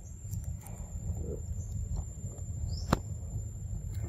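Outdoor ambience: a steady low rumble on the microphone under a thin, constant high whine, with a few faint chirps and one sharp click about three seconds in.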